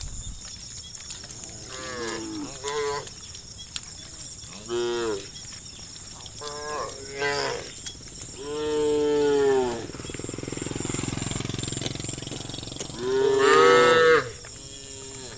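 Cows in a herd mooing to one another: several short calls, then two long, louder moos a few seconds apart, the last near the end the loudest.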